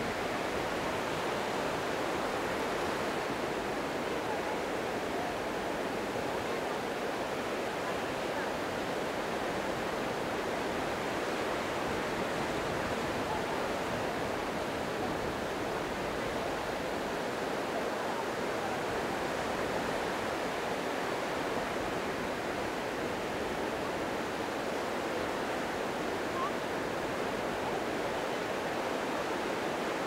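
Small wind-driven sea waves washing continuously onto a sandy beach, a steady, even rush of surf with no separate crashes standing out.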